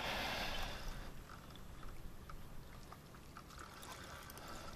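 Shallow water splashing and sloshing as a hooked wild carp is played in close to a muddy bank. The splash is loudest in the first second, then dies down to faint trickling with small clicks.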